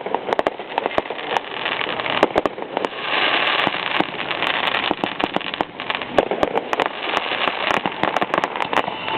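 Fireworks crackling: a dense run of sharp pops and snaps over a steady hissing rush, which swells about three seconds in.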